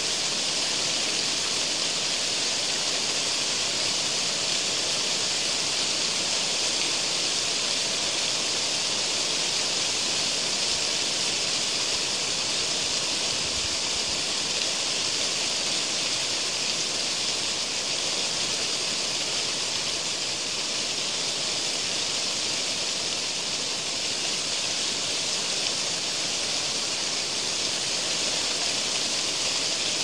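Wind blowing through trees, the leaves rustling in a steady hiss with no gusts or breaks.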